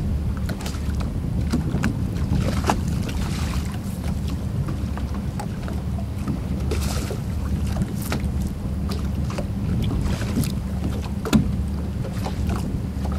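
Wind buffeting the microphone on a fishing boat in choppy water: a steady low rumble, with scattered light knocks and taps.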